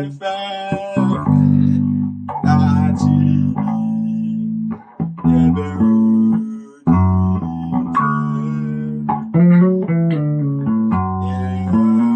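Bass guitar playing a melodic line of plucked, held notes that move step by step. The line demonstrates the substitution that resolves to the root ("do").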